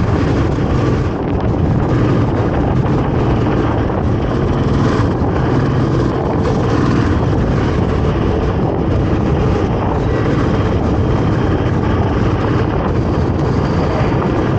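Royal Enfield Classic 350's single-cylinder engine running steadily while riding at cruising speed, heard from a handlebar-mounted camera, with a steady rush of wind and road noise over it.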